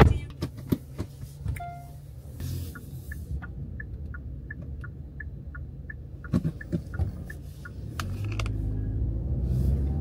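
Clicks and knocks of a passenger getting out of a taxi's back seat, over a light regular ticking from the car at about three a second. A few more knocks follow, then a low rumble grows as the car starts to move off near the end.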